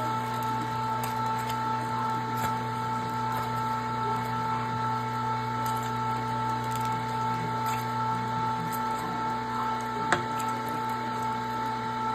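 Electric meat grinder motor running with a steady whine, pushing ground venison through the stuffing tube into a sausage casing. A single sharp click about ten seconds in.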